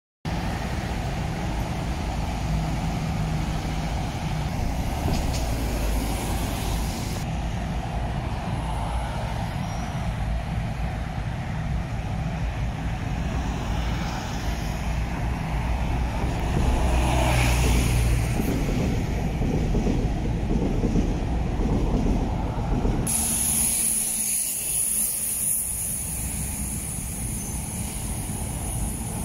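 Diesel city buses running at the bays of a covered bus interchange: a steady engine rumble that swells a little past the middle, with a brief hiss from the air brakes. Late on, the sound cuts abruptly to roadside traffic with a steady high hiss as a bus drives past.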